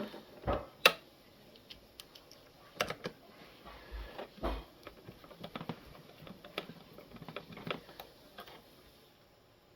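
Irregular small plastic clicks and light knocks from handling the coffee machine's parts while its water hose is fitted back in place, the sharpest click about a second in.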